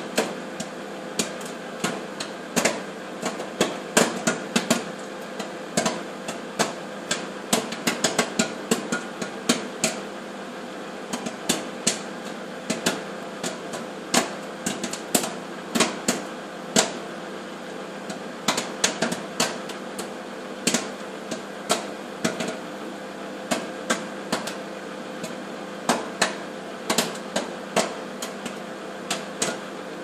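Popcorn kernels popping inside a microwave popcorn bag: sharp, irregular pops, several a second, over the steady hum of the microwave oven running.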